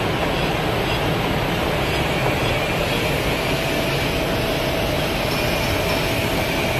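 Eight-colour unit-type flexographic printing press running at production speed: a steady mechanical rumble and hiss with a faint constant whine.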